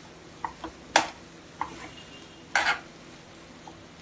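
A metal spoon stirring cooked upma in a non-stick pan: scattered clicks and scrapes of the spoon against the pan, with louder ones about a second in and about two and a half seconds in.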